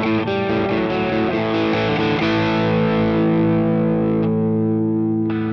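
Overdriven electric guitar played through a Boss Katana Mk2 amp: a quick run of picked notes, then a chord left ringing for about three seconds, and a new chord struck near the end.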